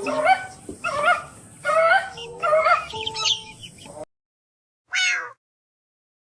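Kitten meowing several times with calls that bend in pitch. The sound cuts off abruptly about four seconds in, then there is one short meow.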